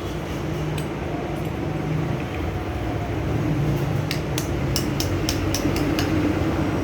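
Series of sharp metal clicks and clinks from work on a washbasin tap, likely as its cover cap is tightened, coming quickly in the second half over a steady background rumble and hum.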